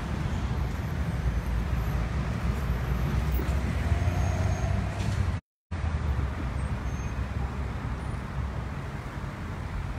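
Street traffic: cars passing, with a steady low rumble. The audio cuts out completely for a moment a little over halfway through.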